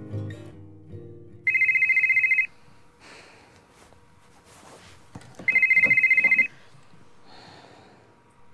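Mobile phone ringing: a warbling trill ringtone sounds twice, each ring about a second long, the two about four seconds apart.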